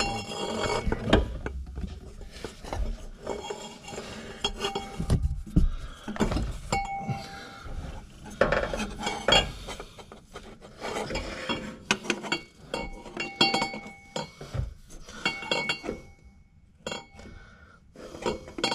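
Taped-together exhaust pipe bends clinking and knocking against metal as they are handled and test-fitted, with short ringing tones after some knocks. The knocks come irregularly and thin out near the end.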